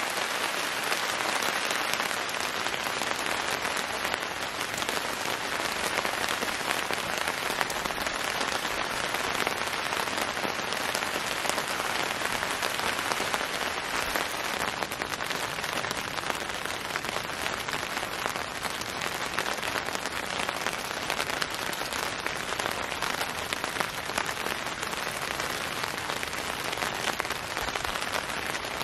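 Heavy rain falling steadily and evenly.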